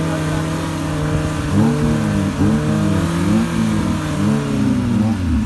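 Suzuki Gypsy 4x4's engine running steadily, then from about a second and a half in revving up and down repeatedly, about twice a second.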